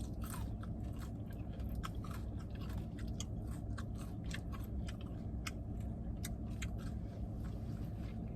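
Close-up chewing and biting on chicken wings: many small, quick wet clicks and crunches scattered throughout, over a steady low hum.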